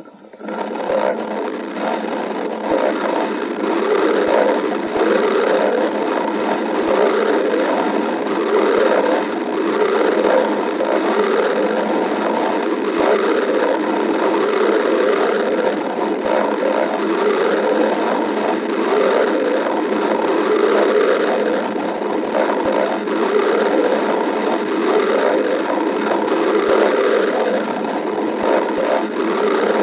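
A human stomach growling and gurgling without a break, swelling every couple of seconds.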